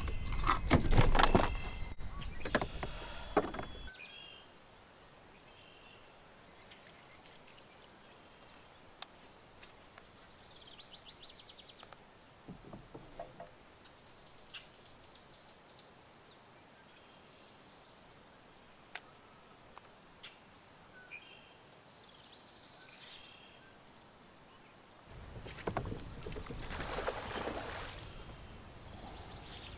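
Water splashing and handling noise at the side of a kayak as a bass is released, then a quiet lake with scattered bird calls and a few sharp clicks. A steady rushing noise comes in about five seconds before the end.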